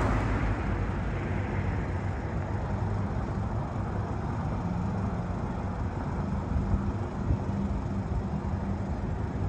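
Road traffic at a signalized intersection. A passing car's tyre and engine noise fades away early on, leaving a steady low rumble of engines from nearby traffic.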